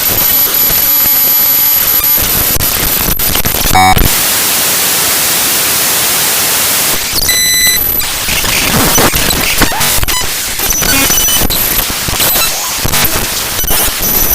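Raw binary data of the Adobe AIR.dll file played back directly as audio: loud, harsh digital noise and static that changes abruptly between stretches of steady hiss, brief buzzing tones and dense crackling clicks.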